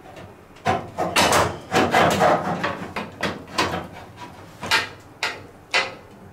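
Plastic and metal parts of a front-load washing machine knocking and scraping as a part is pried and worked loose during disassembly: a series of irregular clacks and knocks.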